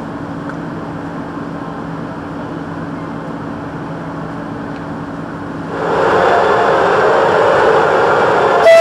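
Train running with a steady low hum, growing suddenly louder about six seconds in, then a short train horn blast starting right at the end.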